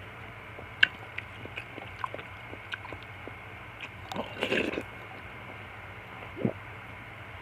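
Close-up mukbang eating sounds: chewing and slurping mouthfuls of fruit soup with nata de coco. Scattered short clicks run throughout, with a louder, denser stretch of chewing about four seconds in lasting under a second.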